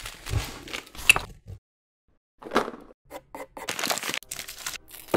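Paper and cardboard packaging crinkling and crackling in short rustles, stopping briefly about a second and a half in, then a quicker run of crackles and rustles.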